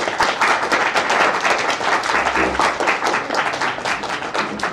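Audience applauding, many hands clapping at once, the clapping starting to thin out near the end.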